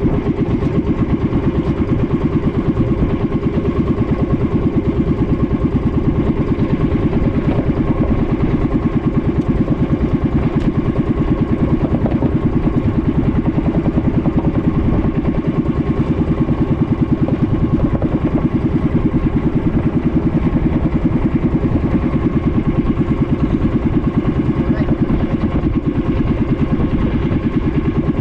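Small boat engine running steadily at an even speed, with a rapid, constant firing beat.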